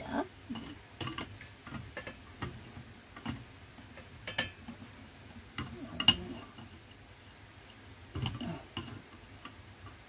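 Adjustable wrench clicking and tapping against the metal fitting of a new part being tightened into a water booster pump: scattered light metallic clicks as the jaw is set and the wrench is worked round, the sharpest about six seconds in.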